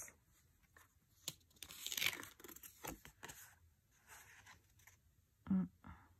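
Tarot cards being handled and turned: faint papery swishes and light clicks of card stock, with one louder brief sound near the end.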